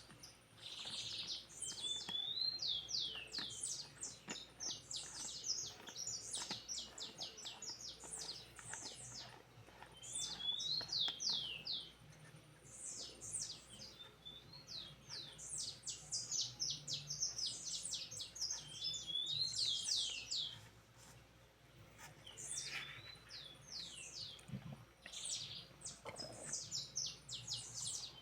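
A songbird singing long, fast runs of high, sharp notes that mostly slide downward, its phrases broken by short pauses about twelve and twenty-two seconds in.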